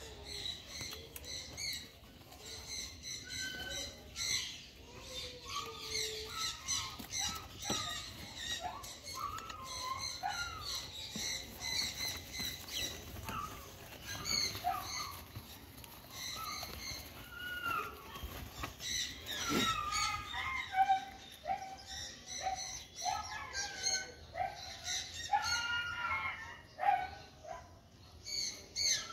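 Small birds chirping busily, with many short squeaky calls rising and falling in between.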